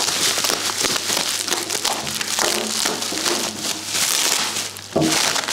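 Bubble wrap and plastic film crinkling and rustling as it is pulled and peeled off by hand, with a brief lull just before the end and then a sharp loud crinkle.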